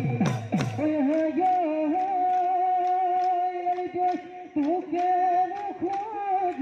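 Bihu music: dhol drum strokes for about the first second, then a singer holds one long, slightly wavering note over a few light percussion taps.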